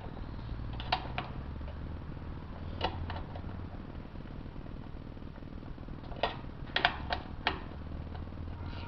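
Sharp metallic clicks and clinks of hand tools and small steel bolts, in scattered ones and twos with a quick cluster about six to seven and a half seconds in, as the 10 mm pan bolts come out of a transmission. A low steady hum sits underneath.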